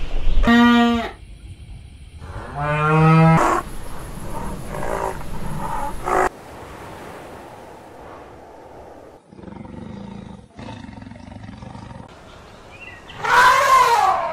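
Elephants trumpeting: a short, loud, level blast, then a second call rising in pitch a couple of seconds later. After a quiet stretch of low noise, another trumpet swells and falls near the end.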